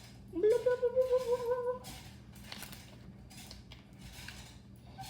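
A young child's voice: one held, wavering wail about a second and a half long, sliding up in pitch as it starts.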